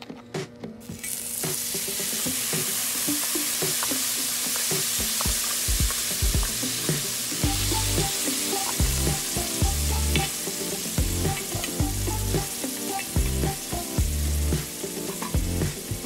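Cubed sirloin steak sizzling as it hits a hot, oiled Firedisc steel cooking disc and starts to sear, with a slotted spatula tapping and scraping the disc as the meat is stirred. The sizzle sets in about a second in; from about halfway a low bass beat runs underneath.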